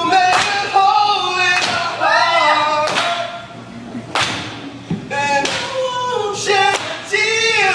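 Voices singing or chanting loudly, with sharp knocks about every second or so.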